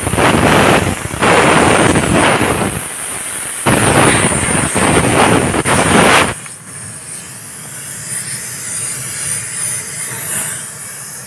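Compressed air blown hard through a car silencer to clear it out, because the silencer is jammed. There are two long, loud blasts, the second ending about six seconds in, then a quieter steady hiss.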